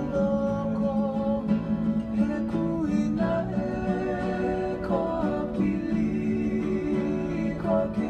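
Background music: acoustic guitar with a slow melody of long held notes that slide from one pitch to the next.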